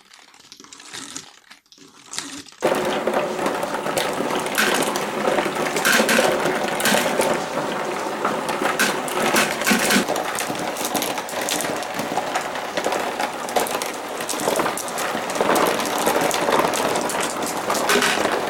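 Many glass marbles rolling and clacking against each other and the track of a marble run, a dense clatter of clicks that starts suddenly about two and a half seconds in, after a few faint clicks.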